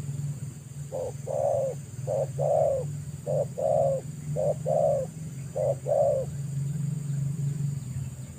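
Spotted dove cooing: five two-note phrases, each a short note followed by a longer one, about one phrase a second. A steady low hum runs underneath.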